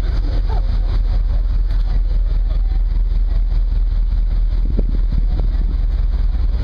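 Steady low rumble aboard a moving passenger ferry: the ship's engine drone, with wind buffeting the microphone.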